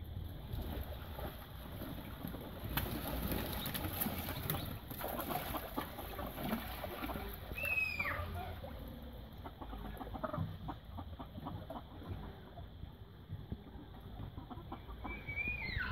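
Domestic ducks and other backyard fowl calling around a garden pond, a busy run of short clucks and quacks. A falling whistle-like call comes about halfway through and again near the end.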